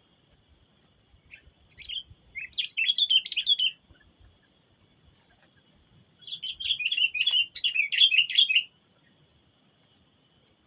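Sooty-headed bulbul singing in two bursts of quick, bubbly chattering notes, the second about four seconds after the first and longer.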